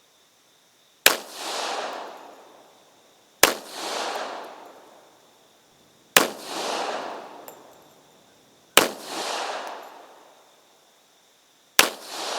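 Springfield Armory M1911-A1 pistol in .45 ACP firing five deliberate single shots about two and a half seconds apart. Each sharp report is followed about half a second later by an echo rolling back and fading.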